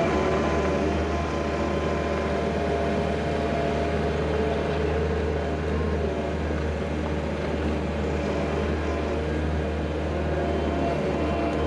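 Skid steer loader's engine running steadily while working.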